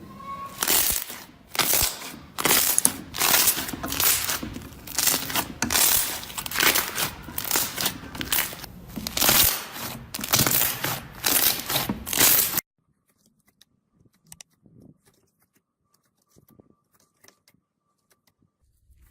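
Slime being squeezed and worked by hand: a dense run of loud crackling and crunching clicks that stops abruptly about two-thirds of the way through, after which only faint scattered clicks remain.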